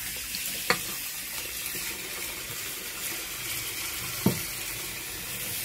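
Kitchen tap running into a stainless steel sink as dishes are rinsed, a steady splashing hiss. Two sharp clinks of dishware are heard, about a second in and again about four seconds in.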